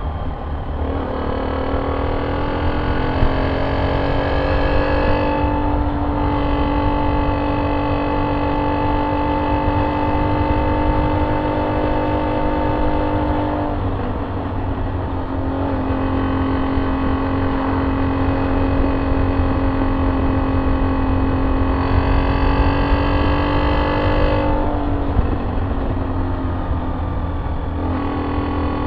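Honda C70's single-cylinder four-stroke engine running through a pisang (banana-style) exhaust while riding, the note rising at the start and then holding steady at cruising speed. It dips twice, about 14 seconds in and about 25 seconds in, before picking up again, with wind rumble underneath.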